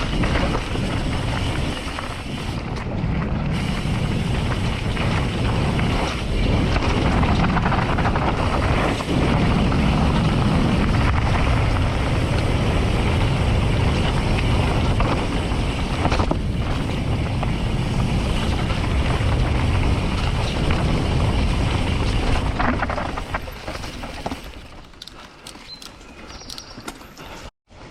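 Wind buffeting the microphone and tyres rumbling over a dirt trail during a fast mountain bike run, loud and steady. About 23 seconds in it drops away to a quieter stretch with scattered clicks and rattles.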